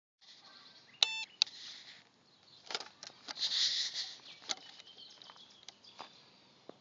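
ANRI-01-02 Sosna dosimeter giving one short electronic beep about a second in, followed by scattered sharp plastic clicks as the handheld meter and its slide switches are handled.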